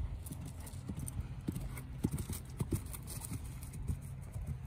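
Horse's hoofbeats thudding dully on grass turf as it canters past under a rider, in an uneven run of footfalls.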